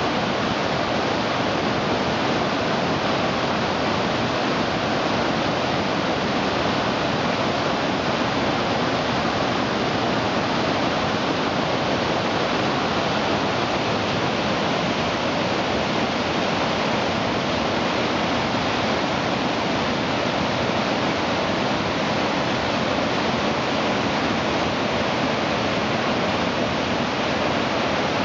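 Steady, loud rushing of a mountain creek's white-water cascade pouring over boulders and logs.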